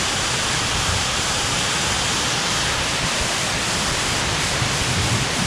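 Multi-tiered jungle waterfall pouring steadily, a dense, even rush of falling water heard close by.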